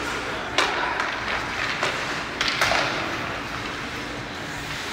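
Ice hockey play in a rink: a steady scrape of skates on the ice with a few sharp clacks of stick and puck, one about half a second in and a cluster near two to two and a half seconds.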